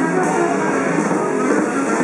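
Jazz band playing live: a dense passage with many notes sounding together over a steady level.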